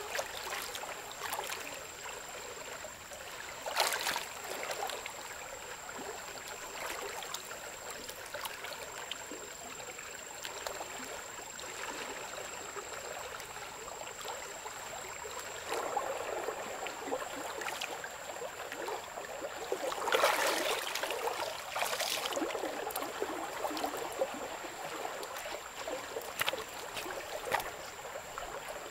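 River water flowing steadily, with splashing as a person bathes and moves about in it, the loudest splashes about four seconds in and again around twenty seconds in.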